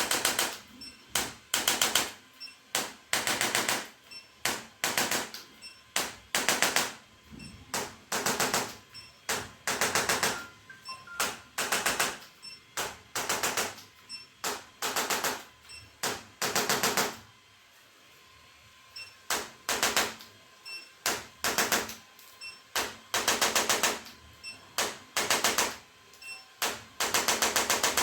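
Rapid percussive tapping in short bursts of under a second, repeated over and over with a quieter gap of about two seconds past the middle; likely percussion worked over a patient's body during treatment.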